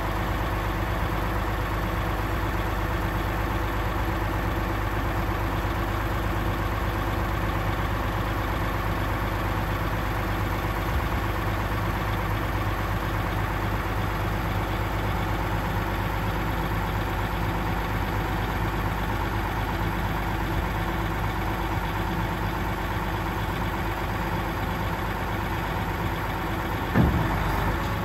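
Diesel engine of a Mercedes-Benz 8x6 dump truck running steadily, driving the hydraulic hoist as the tipper body rises. A single sharp clunk near the end.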